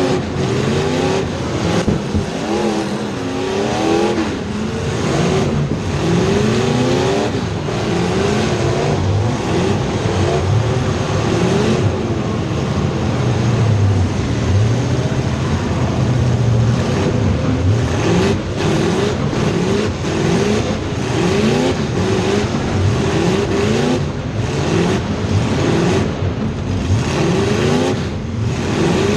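Several race car engines running hard at once, their pitch rising and falling over and over as the cars accelerate and lift through the turns.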